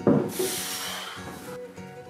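Background music with steady notes. At the start there is a thump, then a brief scraping hiss for under a second as the wooden desk is set down and slid on the hardwood floor.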